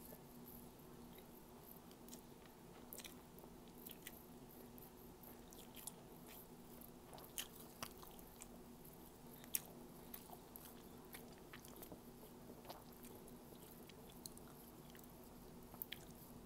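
Faint close-up eating sounds of fried squid and rice eaten by hand: irregular wet smacks, clicks and bites of chewing, over a steady low hum.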